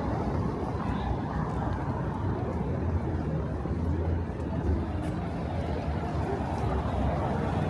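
City street ambience: a steady low rumble of road traffic, with people's voices talking through it.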